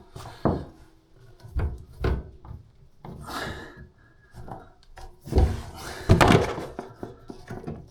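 Hard knocks and clunks with some scraping and rattling from hands working on a toilet tank's parts during a fill-valve replacement, the loudest clatter coming in a cluster about five seconds in.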